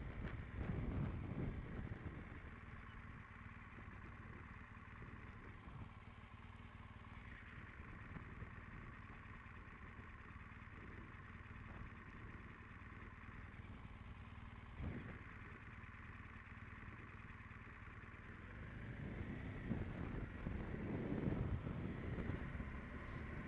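Motorcycle engine running steadily while riding along a steep, narrow mountain pass, picked up by a camera on the bike. Wind rushes over the microphone, stronger in the first couple of seconds and again over the last few.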